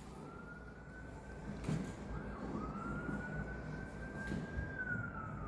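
Distant emergency-vehicle siren wailing, a single tone that slowly rises, dips once and falls away near the end, with a couple of faint knocks.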